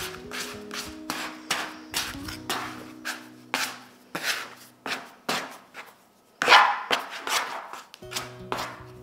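Plastic bench scraper scraping and knocking against a wooden table as it tucks and rounds a ball of bread dough: short strokes about two a second, the loudest one about six and a half seconds in. Soft background music plays underneath.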